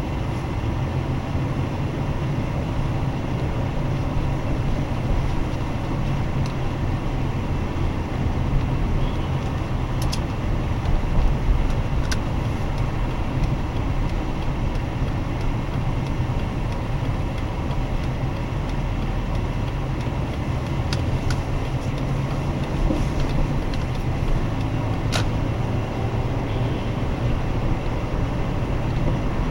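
Steady road noise of a car driving at town speed, heard from inside: low engine and tyre rumble, with a few brief sharp clicks.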